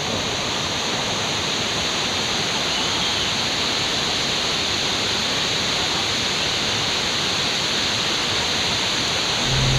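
Anna Ruby Falls, a tall twin waterfall, pouring in a steady, loud rush of falling water. A low hum comes in right at the end.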